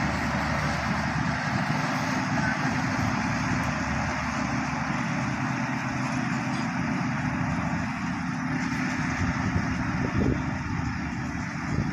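Bulldozer's diesel engine running steadily, with a few knocks near the end.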